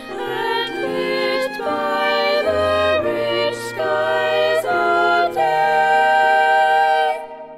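A song: a singing voice holding long notes over piano accompaniment, changing note every second or so and stopping about seven seconds in.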